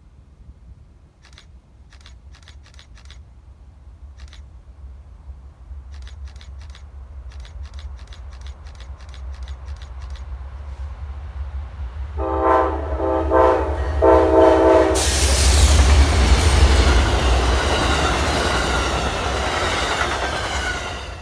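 Amtrak passenger train approaching: a low rumble builds slowly, the horn sounds two blasts about twelve seconds in, and then the train passes close by with loud wheel and rail noise that cuts off suddenly at the end.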